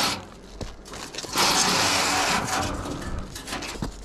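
A chimney brush scraping inside a metal stovepipe: a short rasp at the start, then a louder scrape lasting about a second, with faint clicks between.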